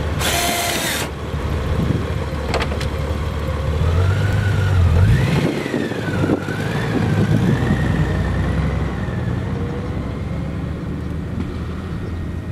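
Honda Gold Wing GL1800 flat-six engine running and then accelerating as the motorcycle pulls away, with a whine that rises and falls in pitch. There is a brief hiss right at the start.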